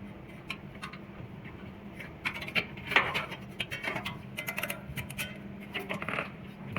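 Parts of a metal hose reel box being handled during disassembly: scattered light clicks, taps and scrapes, busiest from about two seconds in, over a steady low hum.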